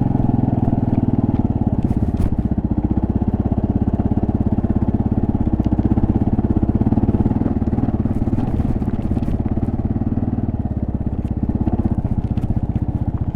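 Kawasaki KLR650S single-cylinder engine running steadily under way on a dirt trail, its exhaust pulsing evenly, with a few sharp clicks over it.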